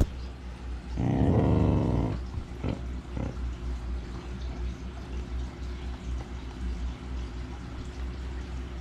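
Basset hound giving one low, rough growl lasting about a second, a little after the start, followed by two soft knocks.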